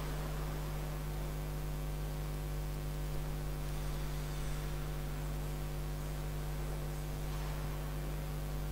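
Steady electrical mains hum, a low buzz with a stack of even overtones, over faint hiss.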